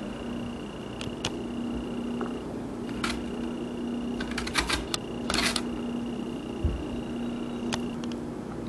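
Scattered light clicks and knocks of a potato and a metal box grater being handled, with one short scrape a little past five seconds, over a steady hum.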